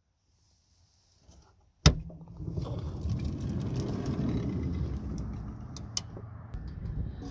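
A sharp, loud click as the minivan's door is unlatched, then a steady low rumbling while the door is pushed open and the camera moves outside, with two small clicks near the end.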